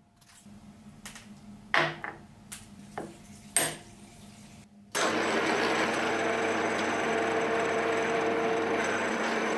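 A few light knocks and clinks of aluminium parts being handled. About five seconds in, a steady, loud machining sound starts suddenly: a milling machine spindle running as a small drill cuts into a solid aluminium block.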